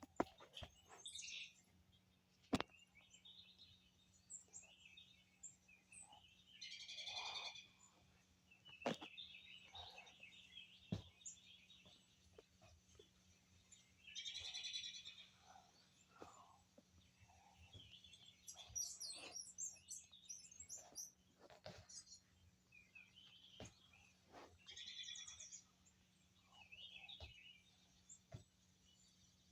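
Faint birds chirping and calling in short high-pitched phrases every few seconds, with scattered soft clicks in between.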